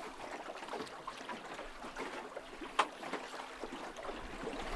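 Steady wash of river current against the hull of an anchored fishing boat, with a single sharp click about three seconds in.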